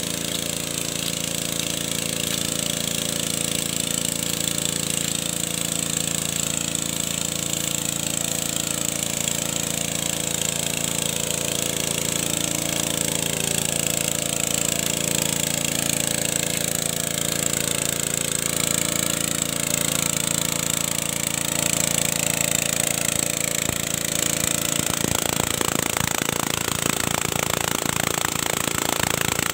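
Small petrol-engine water pump running steadily. About 25 seconds in its sound turns rougher and a little louder, with a rapid knocking rattle.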